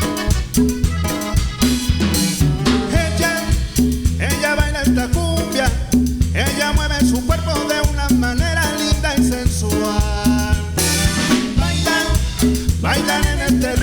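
A cumbia tejana band playing an instrumental passage: a steady bass and drum beat with a lead melody over it.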